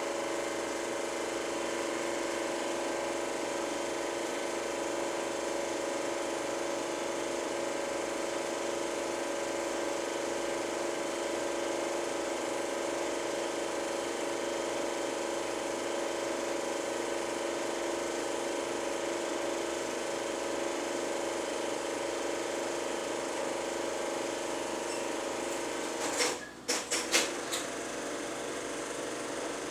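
Super 8 film projector running steadily with a constant mechanical whirring clatter. About 26 seconds in there is a quick cluster of sharp knocks with a brief dip, then the running continues slightly quieter.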